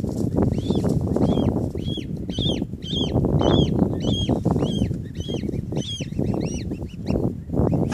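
Newly hatched swan cygnets peeping: repeated short, high, arched calls at about two a second, over a loud low rushing noise.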